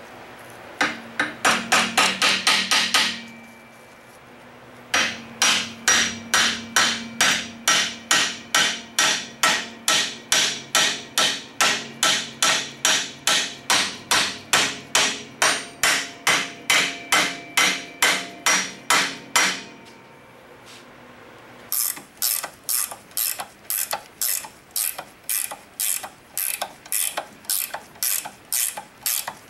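Hammer tapping the new front axle pivot pin of a 1948 Ford 8N tractor in through its new bushing and spacers, the steel ringing with each blow: a short run of quick taps, then a long steady run of about two and a half blows a second. Near the end come lighter, sharper metal clicks at a similar pace.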